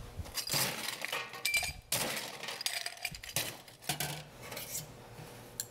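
Ice cubes dropped into an empty drinking glass, clinking against the glass in a series of sharp clinks, some ringing briefly.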